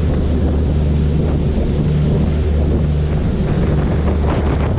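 Wind buffeting the microphone on the open deck of a passenger ferry under way, over a steady low rumble from the moving boat.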